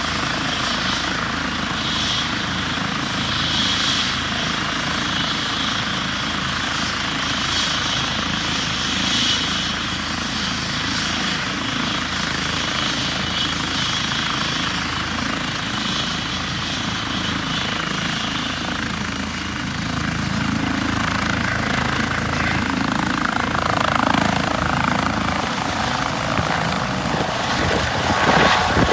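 Airbus H135 helicopter running, a steady turbine and rotor sound. About two-thirds of the way through, a high thin whine comes in and slowly rises in pitch.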